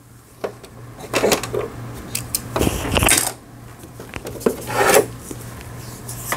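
Hands working on a Singer 3827 sewing machine to thread it: irregular small clicks, taps and rubbing of thread and plastic parts, loudest around the middle, over a steady low hum.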